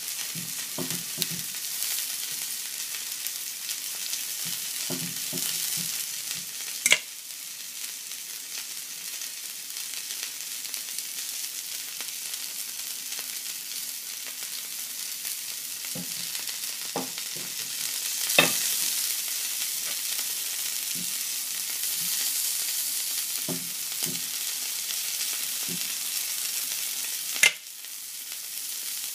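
Venison strip steak searing in hot oil in a cast iron skillet: a steady sizzle with a few sharp pops, the loudest near the end.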